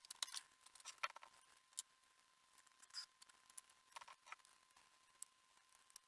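Faint, scattered small clicks and taps from handling an HO scale model locomotive at a workbench as it is taken apart, over a faint steady hum.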